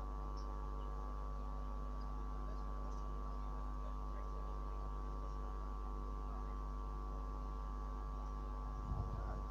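A steady hum made of several constant tones, unchanging throughout, with a brief low thump near the end.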